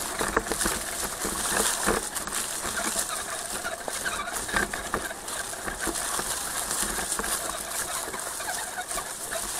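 Redcat Gen7 radio-controlled scale crawler driving over rocky ground: a steady run of small, irregular crunches and clicks from its tyres and drivetrain working over stones.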